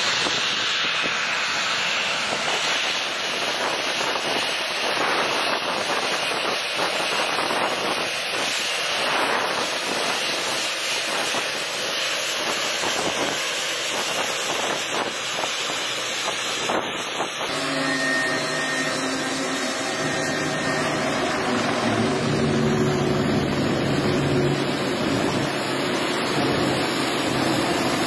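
Boeing 777X's GE9X turbofan engines at taxi power: a steady rushing jet noise as the airliner taxis close by. About two-thirds of the way in, steady humming tones join the rush.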